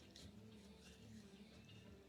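Near silence: faint room hum, with a soft click or two near the start.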